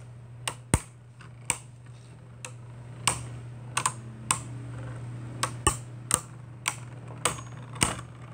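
Two Hasbro Beyblade Burst tops spinning and knocking together in a plastic stadium, making irregular sharp plastic clicks a few times a second over a steady low hum.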